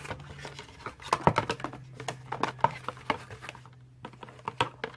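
Rapid small clicks, taps and rustles of hands handling cosmetics packaging and product cases, over a low steady hum.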